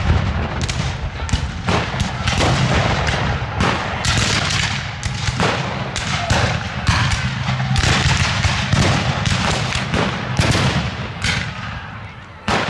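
Black-powder rifle-muskets firing blanks in a ragged, continuous battle volley: sharp irregular shots, two or three a second and overlapping, over a steady low rumble.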